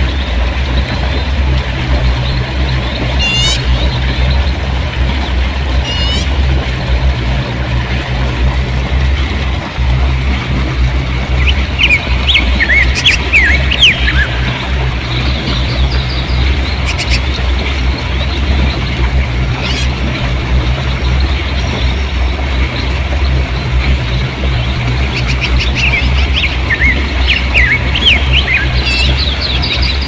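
Rushing river water pouring and splashing over rocks, a steady rush with a deep low rumble. Small birds chirp over it: two quick trills a few seconds in, a burst of chirping around the middle, and more chirping near the end.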